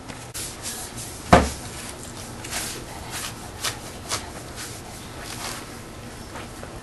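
Long-handled car-wash brush scrubbing against a Toyota's front bumper and grille in short, irregular strokes, with one sharp knock about a second and a half in.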